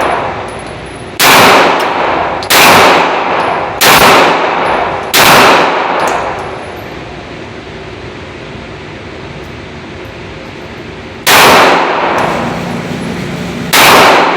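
Six gunshots: four in a row about a second and a half apart, then a pause of about six seconds, then two more. Each shot rings out and fades over about a second.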